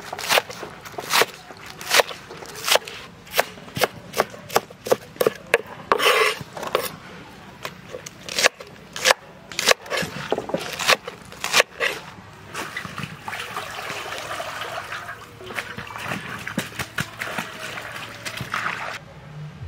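Kitchen knife chopping onion leaves on a wooden cutting board: quick, steady chops, two to three a second, for about the first twelve seconds. After that, water swishing and splashing as hands wash the greens in a metal bowl.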